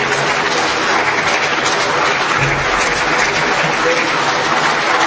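Steady, dense applause mixed with a hubbub of many voices.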